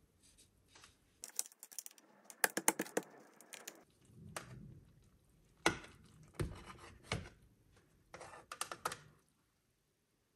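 Clusters of quick light clicks and taps, with a few single duller knocks between them, in a small room.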